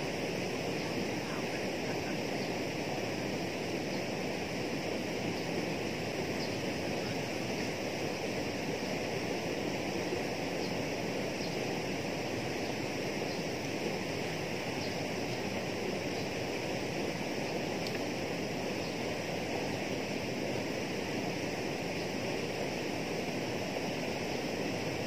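Steady outdoor rushing noise with an even high hiss over it and no distinct events.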